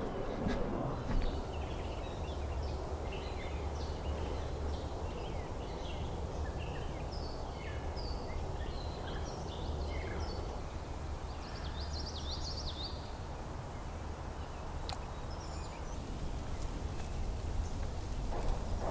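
Wind rumbling on the microphone, with scattered short songs and calls of several small birds over it; a busier run of bird song about twelve seconds in.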